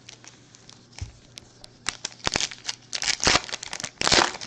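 Foil wrapper of a trading card pack crinkling and tearing as it is opened, with scattered sharp rustles that build into a dense crackle in the second half.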